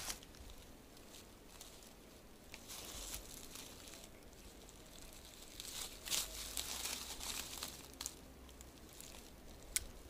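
Faint rustling and crackling from a person moving and handling things close to the microphone, with a few sharper clicks about six seconds in and again near the end.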